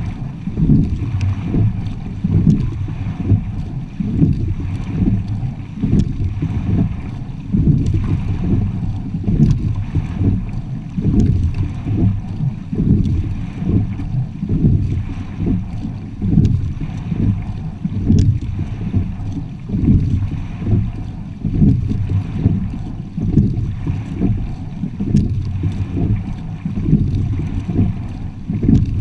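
Water rushing along the hull of a racing quad scull, with wind buffeting the microphone, swelling and falling with each stroke at a steady race pace, a little under two seconds apart.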